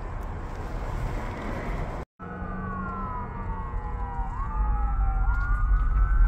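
Steady rumble of road traffic, then, from a little after two seconds in, an emergency vehicle's siren wailing in slow falling and rising sweeps, two tones overlapping, over the traffic rumble.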